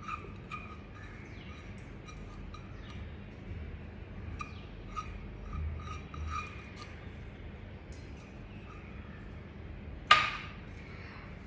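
Silicone spatula scraping and tapping thick sourdough discard out of a stainless steel measuring cup, a run of light scrapes and clicks, then one sharp clink near the end.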